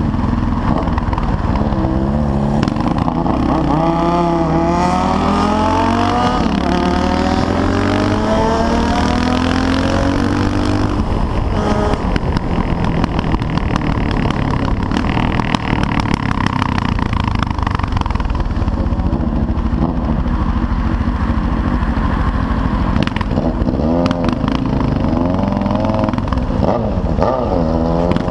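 CCM R30 supermoto's single-cylinder Suzuki engine pulling through the gears, its note rising in pitch several times with drops at the shifts, then holding a steady cruise, and climbing again near the end.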